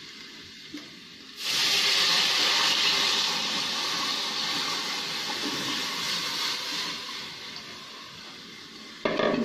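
Cold buttermilk and gram-flour batter poured into hot mustard oil and frying garlic-ginger-chilli paste in a kadhai. A faint sizzle gives way, about a second and a half in, to a sudden loud hiss as the liquid hits the hot oil, which slowly dies down.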